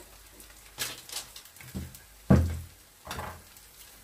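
Kimchi pancakes frying faintly in a pan on a portable gas burner, with a handful of sharp knocks and clatters from utensils and the frying pan being handled; the loudest, a heavy clunk, comes a little past halfway.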